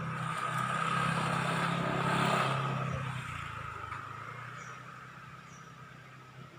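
A motor vehicle's engine running with a rushing noise that swells about two seconds in and then fades away, like a vehicle passing by.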